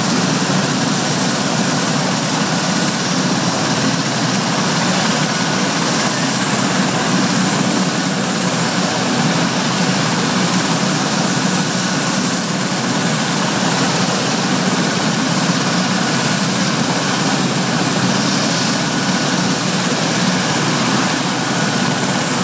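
Royal Navy Sea King search-and-rescue helicopter running its turbine engines on the ground: a steady, unbroken rush with a faint high whine over it. This is a ground engine run to test the No. 2 engine after its repair.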